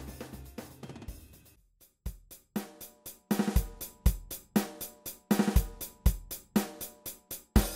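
Background music: one track fades out over the first two seconds, then a new track starts with a steady drum beat of low thumps and sharp hits.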